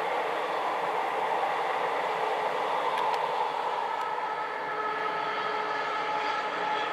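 Electric train passing on the line, a steady rush of wheels on rail. About four and a half seconds in, a steady whine of several tones joins in as a freight train of container wagons behind an electric locomotive goes by.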